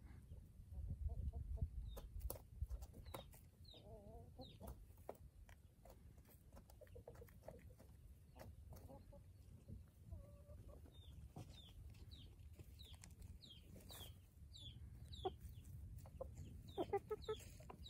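Chickens clucking softly in short low calls, with runs of short, high, falling chirps, densest in the second half, and light clicks of pecking and scratching in gravel litter.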